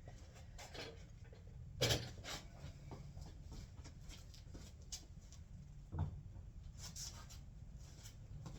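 Light handling noises from a surface-grinder wheel and its tools being moved about: scattered small clicks and rubbing, with a dull knock about two seconds in and another about six seconds in.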